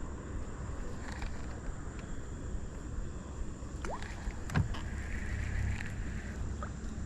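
Low, steady rumble of a small boat on the water, with a few light clicks and a short rising whistle about four seconds in.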